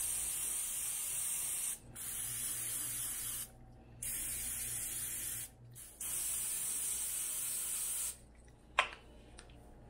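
An aerosol can of vegetable-oil cooking spray hisses in four bursts of about one and a half to two seconds each, greasing silicone egg cups. A single light click comes near the end.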